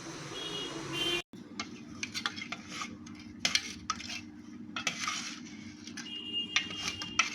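A metal spoon stirring and scraping in a cooking pot: an irregular run of clinks and scrapes against the metal.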